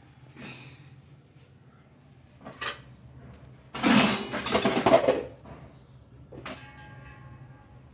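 Stainless-steel pots and vessels clattering together in a plastic basket as it is carried and set down, with one loud clatter lasting about a second and a half from about four seconds in and a few lighter knocks before and after.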